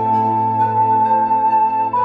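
Background music: a soft flute-like melody holding one long note over a sustained chord, stepping up in pitch near the end.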